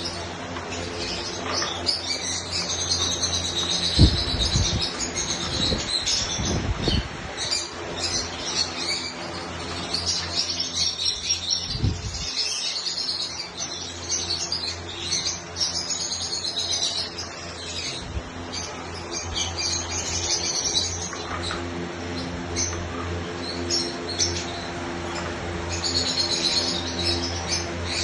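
Lovebirds chattering in bursts of rapid, high chirps over a steady low hum, with a few low thumps in the first half.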